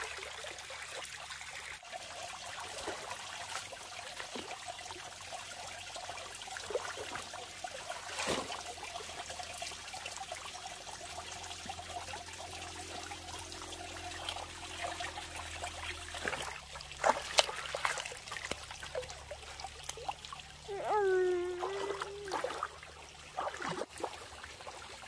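Water trickling steadily, with scattered sharp clicks and knocks, loudest around the middle. Near the end there is a short, high, wavering call.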